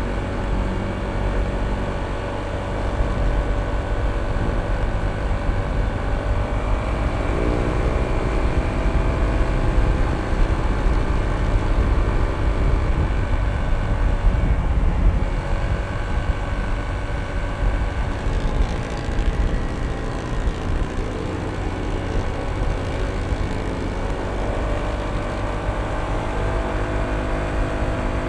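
Honda ADV160 scooter's single-cylinder engine running while riding, under a steady low rumble. Its pitch rises quickly about a quarter of the way in, then again near the end, as the scooter speeds up.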